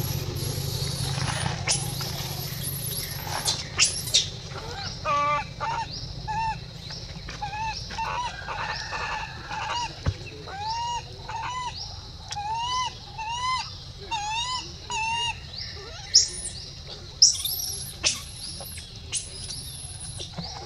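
Animal calls: a run of short, arched chirps repeating every second or so, with a few louder, shrill, high calls near the start and again near the end.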